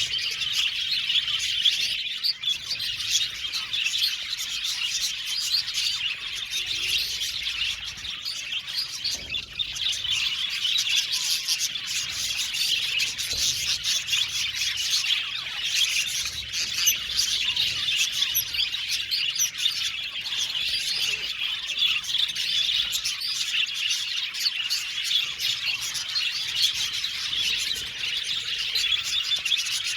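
A flock of budgerigars chirping and warbling all at once, a dense, continuous chatter of many overlapping high calls.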